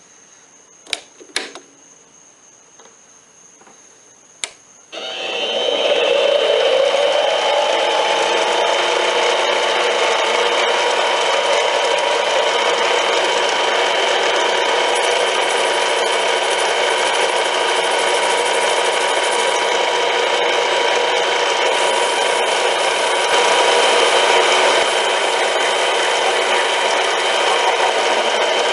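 A few light clicks and knocks, then about five seconds in a machine tool's motor starts, its pitch rising briefly as it comes up to speed, and runs steadily with a loud whirring hum, typical of metal machining.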